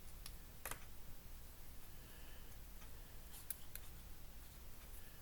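Faint handling of paper and craft pieces on a desk: a few light taps and clicks over a low steady room hum.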